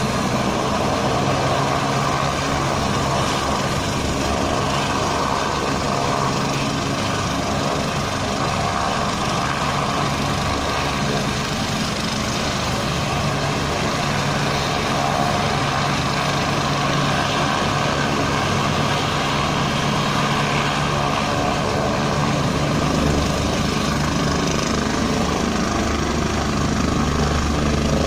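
Rescue helicopter's turbine engines and rotor running steadily at ground idle on the pad, warming up before takeoff.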